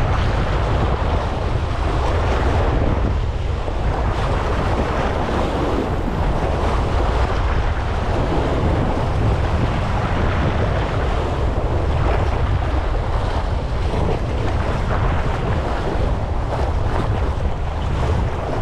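Choppy sea water washing and splashing against a rock breakwater, with wind buffeting the microphone in a steady low rumble.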